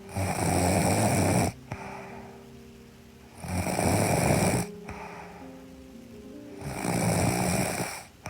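A young woman snoring in her sleep: three loud, rasping snores about every three and a half seconds, each lasting over a second. Soft background music plays underneath.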